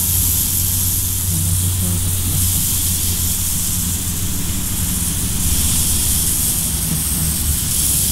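A steady hiss of noise that swells and fades every few seconds, over a low steady hum.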